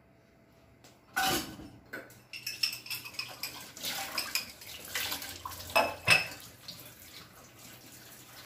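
Dishes and utensils clattering in a stainless-steel sink under a running tap, with a run of sharp clanks, the loudest about six seconds in. Faint running water remains near the end.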